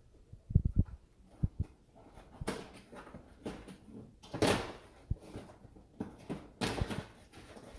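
A boxed marble run toy being handled: a few soft thumps, then several brief rustling, scraping noises of the packaging, the loudest about four and a half seconds in.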